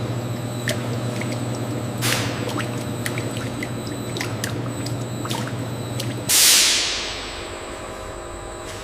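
Steady machine hum with scattered drips and trickling liquid, then a sudden loud hiss about six seconds in that fades over about a second as the hum stops.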